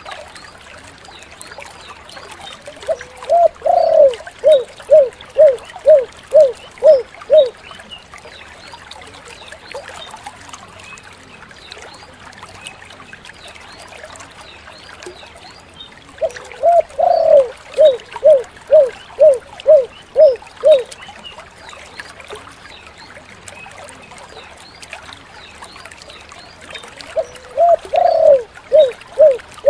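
Spotted dove (tekukur) cooing its long 'kuk 7' song: a louder two-part opening coo followed by a run of about seven short, evenly spaced coos. The song comes three times, roughly every 13 seconds, the last starting near the end.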